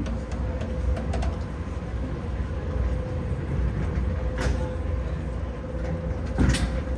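River ferry's engine drone heard on board: a steady low rumble with a constant hum above it. Two sharp knocks come about four and a half and six and a half seconds in, the second the louder.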